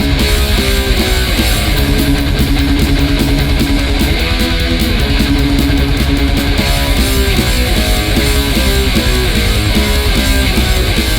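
Thrash/speed metal band playing loud and steady: fast distorted electric guitar riffing over bass and drums with crashing cymbals.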